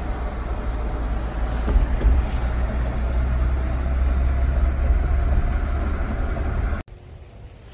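Road and tyre noise inside a moving vehicle's cab, a steady low rumble. It cuts off suddenly about seven seconds in, giving way to a much quieter hiss.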